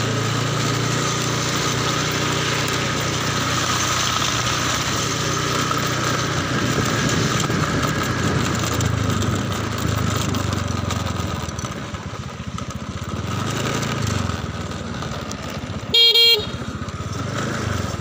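Motorcycle engine running as it is ridden along a road, with steady road and wind noise. Near the end a short horn beep sounds, the loudest sound.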